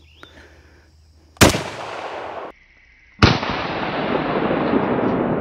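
Two single shots from an FN FAL .308 battle rifle, about two seconds apart, each followed by a long rushing tail of noise; the first tail cuts off abruptly.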